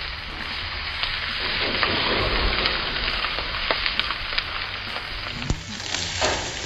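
Beef steaks sizzling hard on the hot grates of a gas grill amid flare-ups, a steady crackling hiss, with a few sharp clicks of metal tongs against the grate.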